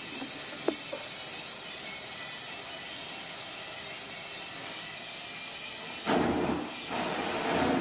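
Gas torch flame hissing steadily as it heats a bronze sculpture for a hot patina, with one sharp click about a second in. About six seconds in the rush turns louder and rougher.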